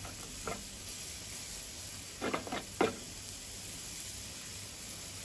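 Meat sizzling on a barbecue grill after basting with garlic dressing: a steady hiss, with a few short louder sounds a little over two seconds in.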